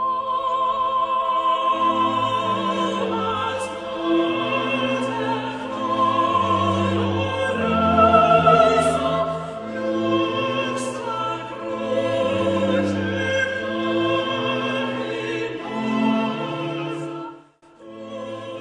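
Slow classical music: a high sung line with vibrato over held low string notes, with a brief break near the end.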